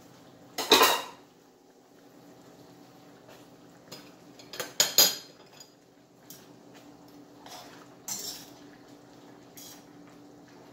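A cooking utensil clanking and scraping against a metal wok as chicken adobo with peanuts is stirred. There is a loud clatter just under a second in, a quick run of knocks around five seconds, and lighter taps near eight and ten seconds.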